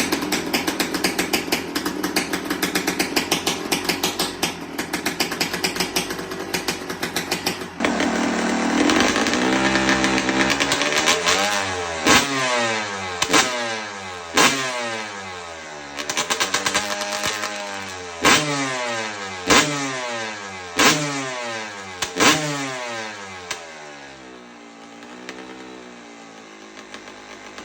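Yamaha YZ250 two-stroke engine running fast, then revved in a string of throttle blips, its pitch rising and falling each time. Near the end it settles back to a quieter idle.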